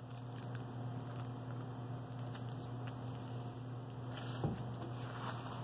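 Hands smoothing a rolled diamond painting canvas and its plastic cover sheet on a wooden table: soft rustling and light scratching, with one small knock about four and a half seconds in. A steady low electrical hum runs underneath.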